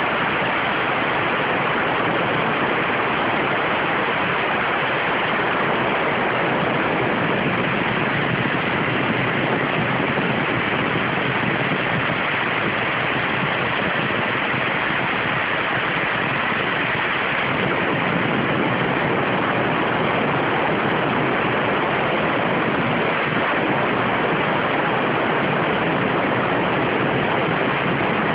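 CNC waterjet cutting 0.6 mm stainless steel sheet: a loud, steady hiss of the high-pressure jet, which grows fuller and deeper a little over halfway through.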